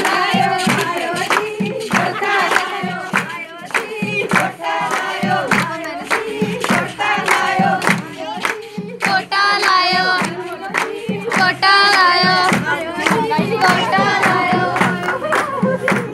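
A group of women singing a Punjabi folk song together, with steady rhythmic hand clapping about three claps a second.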